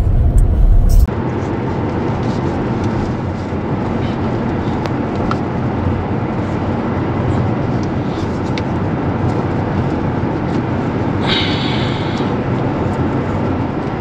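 Steady road and tyre noise inside a Tesla Model X cabin at highway speed. About a second in, a deeper, louder rumble with a few clicks cuts off abruptly and the noise turns thinner and even. A brief higher hiss comes in about eleven seconds in.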